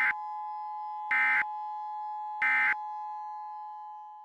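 Emergency Alert System end-of-message tones: three short digital data bursts about 1.2 seconds apart, over the steady two-tone EAS attention signal, which fades out near the end.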